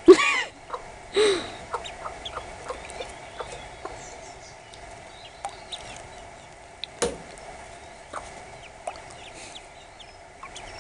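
Mother hen clucking twice near the start, with ducklings peeping in short scattered cheeps. There is one sharp knock about seven seconds in.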